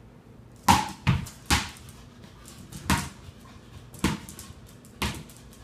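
Ball bouncing and knocking on a hard floor as a puppy plays with it: about six sharp hits at irregular intervals, the loudest about a second in.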